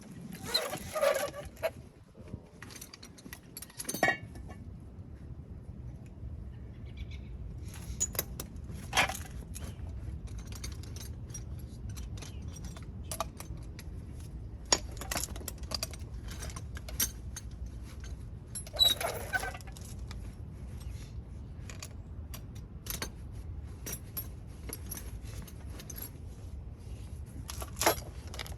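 Metal hand tools clinking and rattling: sockets, extensions and a ratchet knocking against each other and the rear hub while being tried on the hub assembly's 13 mm bolts, in many scattered sharp clinks with a longer clatter near the start and again about two-thirds through. A low steady hum comes in about four seconds in.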